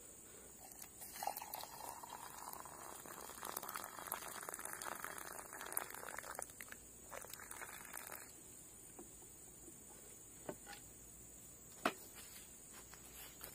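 Water poured in a thin stream into a plastic mug over a tea bag and spoon: a splashing trickle that starts about a second in and stops abruptly about eight seconds in. A few small sharp clicks follow, the loudest near the end.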